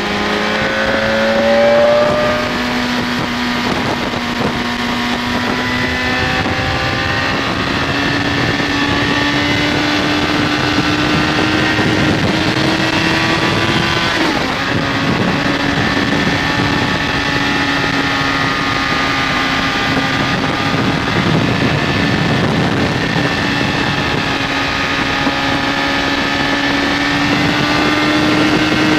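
BMW K1200S inline-four engine pulling steadily under way, its note climbing slowly in pitch, dropping briefly about halfway through, then climbing again, over a steady rush of wind noise.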